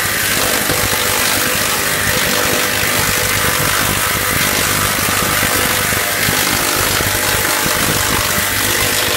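Meat bowl cutter running: its high-speed knives and turning stainless bowl chop meat into a fine paste, making a loud, steady rushing noise over a low hum.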